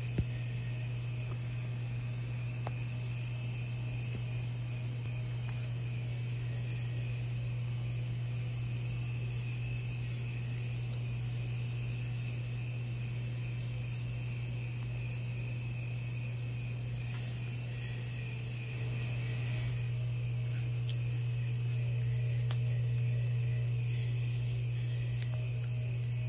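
A chorus of crickets chirping in a steady, unbroken high trill, over a steady low hum.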